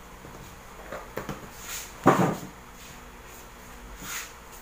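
A few knocks and clunks of a plastic seasoning bottle handled and set down on a tabletop, the loudest about two seconds in, with brief scraping rustles of hands at the food tub.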